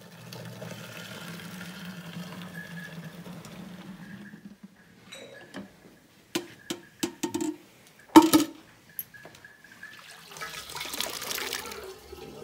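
Fresh milk being poured from one vessel into another, a steady pouring sound. In the middle come several sharp knocks, the loudest about eight seconds in, and near the end the milk pours again with a rushing sound.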